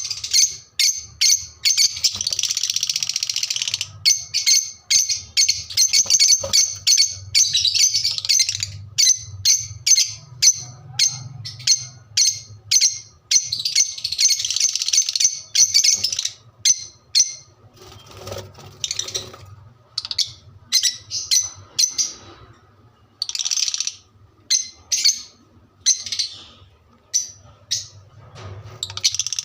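A pet parrot chirping over and over in short, high-pitched calls, several a second, running together into longer chattering strings at times and pausing briefly now and then.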